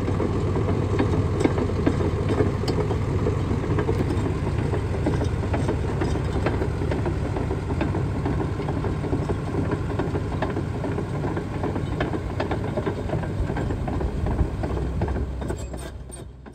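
2014 Cat D6N XL crawler dozer's six-cylinder diesel running as the machine drives, its steel tracks clattering. The sound fades out near the end.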